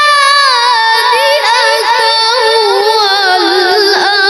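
A boy reciting the Qur'an in the melodic tilawah style: one unbroken phrase of long held notes with quick wavering ornaments, drifting slowly lower in pitch.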